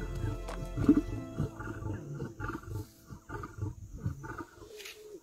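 Male lion growling over its kill in a series of short, rhythmic pulses, about two to three a second, with a louder growl about a second in: a guarding growl as a cub comes near. Background music fades out in the first second or two.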